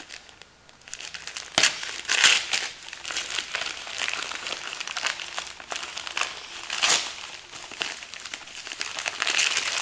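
Gift wrapping paper being crinkled and torn as a parcel is unwrapped by hand. The rustling is irregular, with two sharper, louder crackles, one about a second and a half in and one about seven seconds in.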